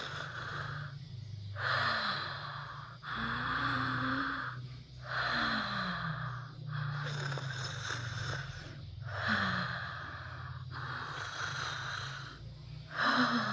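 A woman breathing hard in and out through her nose and wide-open mouth as a breathing exercise: about eight loud, rushing breaths of roughly a second and a half each, one after another with short pauses, a few of them carrying a brief voiced tone.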